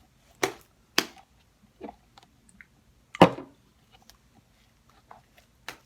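Sticky slime being mixed and handled: five short, sharp, wet smacks and clicks, the loudest about three seconds in.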